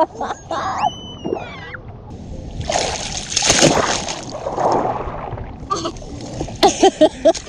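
Water splashing and sloshing, with a loud noisy surge about three seconds in; a brief high gliding squeal early on and a voice near the end.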